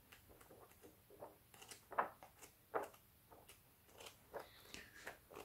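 Faint handling of books: soft paper rustles and a few light taps, the clearest about two seconds in and again a little before three seconds.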